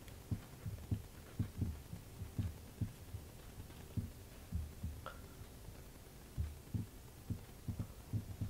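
Soft low thuds, two or three a second at an uneven pace, over a faint steady hum, like a heartbeat-style pulse.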